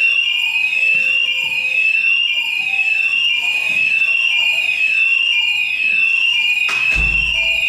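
Building fire alarm sounding a loud evacuation signal: a piercing sweeping tone that repeats about once a second without a break. A knock or bump comes near the end, followed by a low rumble.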